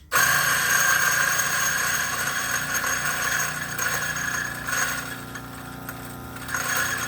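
DF64 Turin flat-burr coffee grinder's motor switching on abruptly and grinding a small dose of coffee beans, a steady whirring whine. It gets quieter about five seconds in, with a brief swell near the end.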